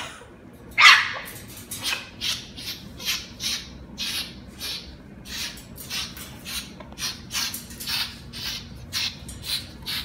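Umbrella cockatoo screeching: one loud, harsh scream about a second in, then a long run of short raspy bursts, about two or three a second, while it flaps its wings with its crest raised.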